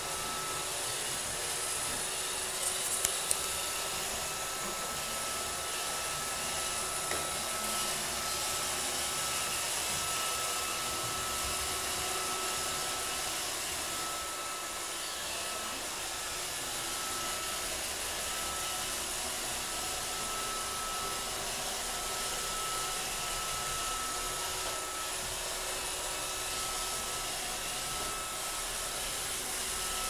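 Roomba robot vacuum running on a wooden floor: a steady whirring of motor and brushes with a thin steady whine, and a couple of light clicks about three seconds in.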